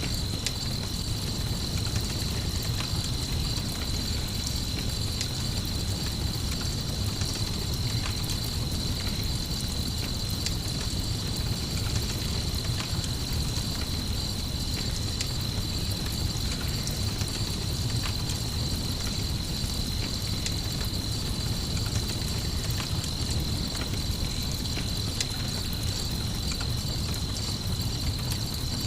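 Night ambience of a crickets' chorus as a steady high trill, layered over a campfire's low rumble with scattered small crackles.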